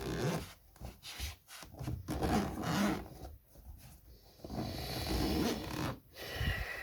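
Cardboard and plastic packaging of a GoPro Hero 9 Black box rubbing and scraping by hand as the box is opened, in irregular strokes with a few sharp clicks and a longer scrape about two-thirds of the way through.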